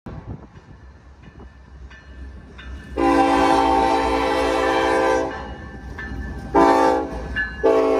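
Norfolk Southern freight locomotive's multi-chime air horn blowing as the train approaches: a long blast about three seconds in lasting about two seconds, a short blast, then another long blast starting near the end. This is the long–short–long ending of the grade-crossing signal, over the low rumble of the diesel locomotives.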